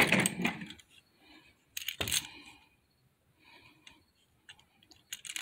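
Plastic toy vehicles and action figures being handled and clattering against each other. A rattling clatter comes at the start, another about two seconds in, and a few light clicks near the end.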